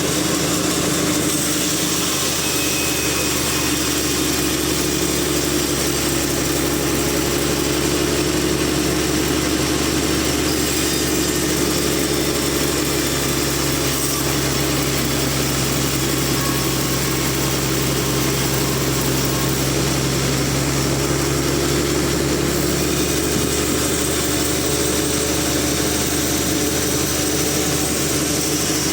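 Large sawmill machine running steadily: a continuous low engine-like hum with a hiss above it, the level never dropping.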